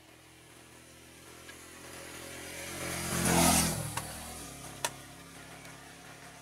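Motorcycle riding past close by, its engine swelling to a peak about three and a half seconds in and then fading away, with a single sharp click a little later.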